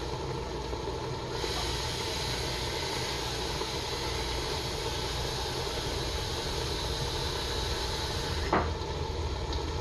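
Meat, vegetables and red wine sizzling in a stainless steel stockpot, a steady hiss over a low steady hum. The hiss grows brighter about a second and a half in and drops back near the end, where there is a brief knock.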